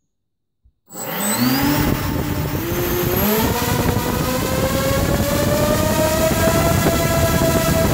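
Four brushless quadcopter motors (three SunnySky 2207 2100 kV, one RCX 2206 2250 kV) spinning King Kong 6040 propellers start about a second in. They are throttled up in steps with a rising, multi-toned whine over propeller wash, then held near full throttle, drawing around 70 amps for a peak-power test, and begin to wind down at the very end.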